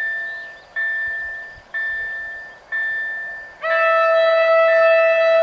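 Level-crossing warning bell ringing about once a second, each ding fading before the next. A little past halfway the approaching electric train's horn comes in, a loud steady chord that drowns out the bell.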